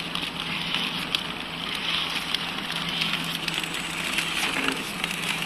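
Pillow-type flow-wrap packing machine running a test cycle after the product position was re-set. A steady mechanical whirr with a fast patter of light clicks and a low hum.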